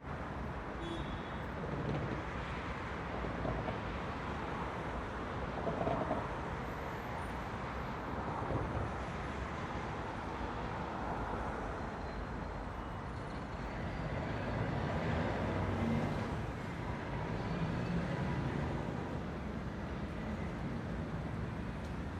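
City street traffic noise: a steady rumble of cars and other vehicles, swelling a little as vehicles pass.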